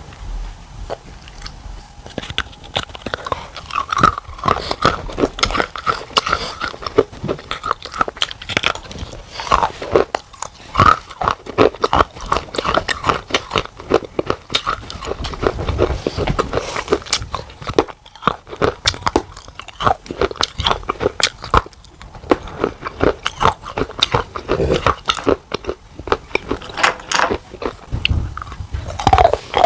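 Pieces of baked clay pot being bitten and chewed, a dense, irregular run of sharp crunches.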